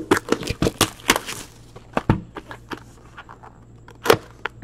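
Shrink wrap being cut and peeled off a hockey card box, with crackling plastic and scraping cardboard, busiest in the first second and a half. A sharper click or knock comes about four seconds in.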